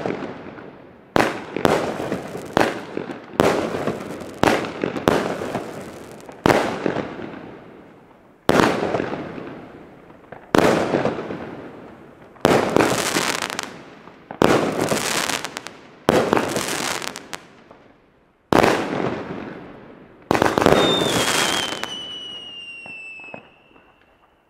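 Weco Shock Attack 35-shot firework battery firing: a sharp bang every one to two seconds, each trailing off in a fading crackle. Near the end a whistle slides slowly down in pitch.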